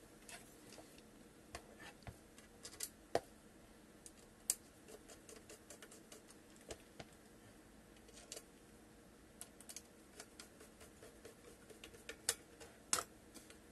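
Scattered small clicks and taps as a portable hard-drive enclosure is handled and a screw is fitted into its end with a small precision screwdriver. The sharpest clicks come about three and four and a half seconds in and again near the end.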